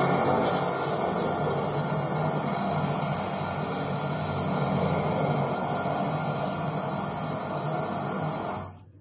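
High-pressure drain jetter running, a steady noisy rush of pump and water jet, cutting off suddenly near the end.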